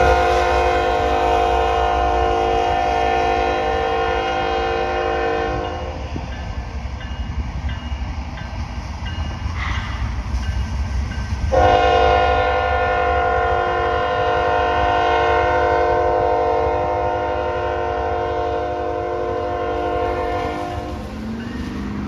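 Air horn of CN ES44AC 3807, the lead locomotive of a freight train, sounding two long blasts for a grade crossing: one of about six seconds and, after a pause of about five seconds, one of about nine seconds. A steady low rumble from the passing train runs underneath.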